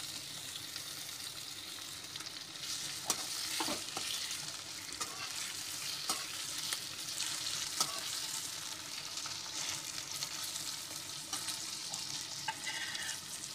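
Sliced tomatoes, chopped onion and green chillies sizzling in hot oil in a metal kadhai, stirred with a metal spatula that scrapes and clicks against the pan now and then.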